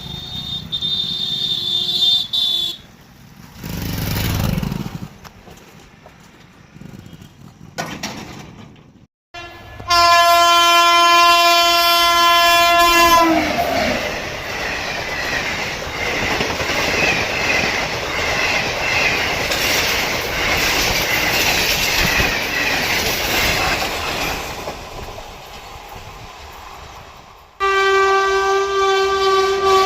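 Indian Railways trains horning and passing in a series of cut-together clips: a horn blast starting about ten seconds in falls in pitch as the train goes by, followed by the long rumble and wheel clatter of the passing train, and another horn sounds near the end.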